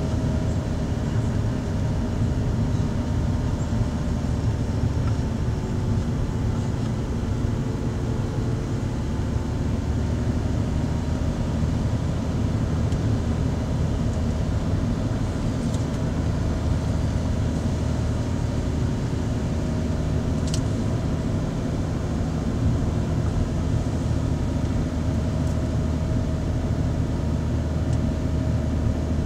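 A car driving, heard from inside the cabin: a steady low drone of engine and tyre noise with a faint engine hum that drifts slightly in pitch. A single small click about two-thirds of the way through.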